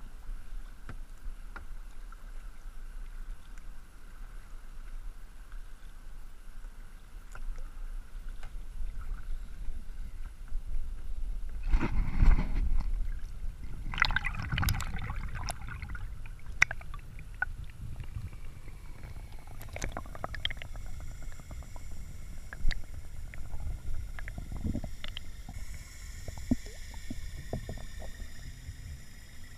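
Kayak paddling: water splashing and lapping against the kayak's hull, with louder splashes about twelve and fifteen seconds in. Near the end the sound turns muffled and gurgling as the microphone goes under the water.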